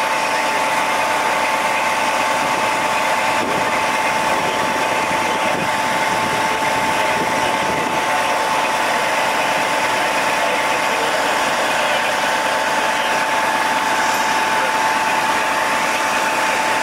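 Machinery running steadily, with a constant high-pitched whine over a dense hum.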